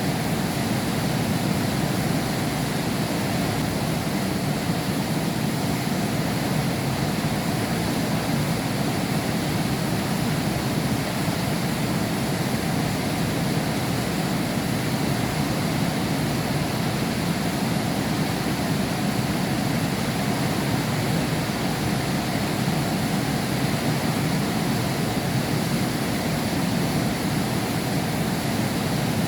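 Heavy rain falling in a steady, unbroken downpour, heard from behind a glass window.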